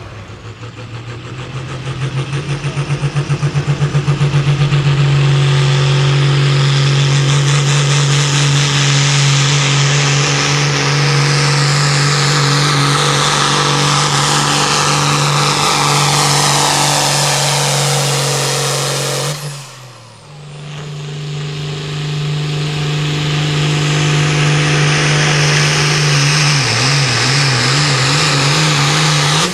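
Modified diesel farm tractors pulling a weight-transfer sled at full throttle, their engines running loud and steady at high revs. The first pull builds over a few seconds and cuts off abruptly about two-thirds of the way through. A second tractor's engine then builds back up to full throttle.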